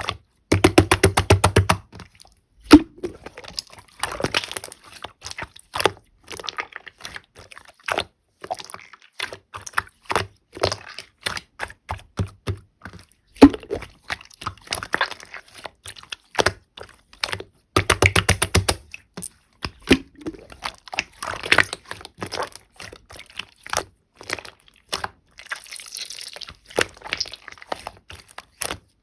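Slime being squeezed and pressed by hand, giving sharp clicks and pops from trapped air, with quick bursts of rapid clicking near the start and about two-thirds of the way through.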